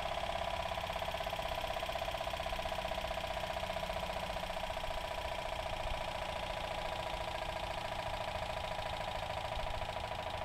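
Homemade tin-can Stirling engine running with a fast, even mechanical beat over a steady whir. It is still turning on leftover heat after its alcohol lamp has been put out.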